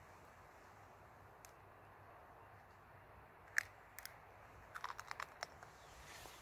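A raw egg being cracked by hand over a frying pan: a few sharp clicks and crackles of the shell breaking, the loudest about three and a half seconds in and a quick run of small cracks about a second later. Behind them is a faint steady sizzle of bacon frying in the pan.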